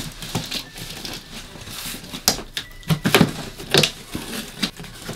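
Cardboard shipping box being opened by hand: its flaps rustle and scrape as they are pulled back, with several sharp cardboard crackles.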